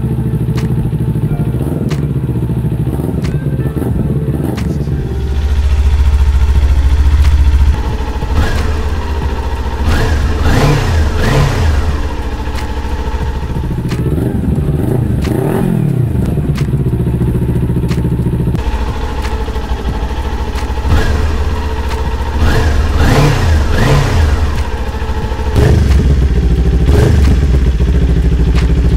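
Kawasaki Ninja 400 parallel-twin engine idling and being revved up and let fall back several times. Its exhaust note is heard with the stock silencer and with an M4 slip-on in turn.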